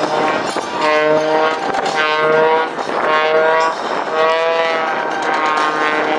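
Oracle Challenger III aerobatic biplane's 400-horsepower piston engine and propeller running hard in a display, its note swelling and easing about once a second with small upward bends in pitch as the throttle and aircraft attitude change.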